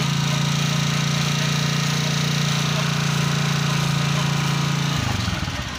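Italika FT 150 GTS single-cylinder engine running steadily in third gear on the stand, driving the spinning rear wheel through the chain, with no rubbing from the gearbox now that the broken third gear has been replaced. Near the end the engine note falls away.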